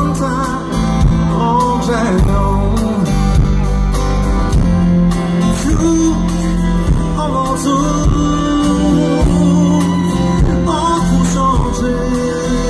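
A pop song played live by a band through a concert PA, with guitar, steady bass and some singing, picked up on a phone from within the crowd.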